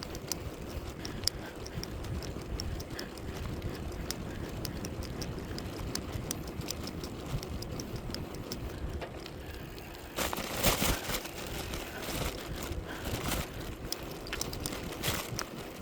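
A bicycle being ridden: a steady low rumble of wind and road noise, with light rattling clicks throughout and a louder rattling stretch about ten seconds in.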